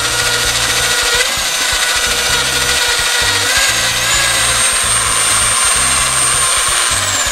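Vorskla electric drill with a stirring attachment running in a steel pot, churning soaked shredded paper and water into pulp. Its motor whine steps up in pitch twice and starts to fall near the end as the drill slows.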